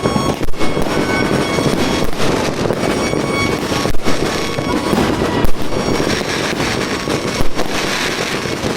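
Fireworks going off in a dense, continuous barrage: a steady rumble and crackle of many overlapping bangs, with several louder single reports standing out through it.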